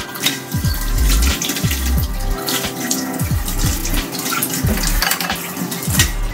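Tap water running into a kitchen sink as a coffee mug is rinsed under it, splashing, over background music.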